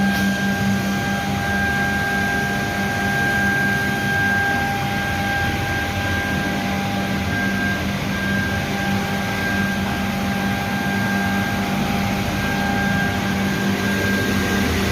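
Birlik Makine BM7 PVC edge banding machine running: a steady machine hum with a constant high whine.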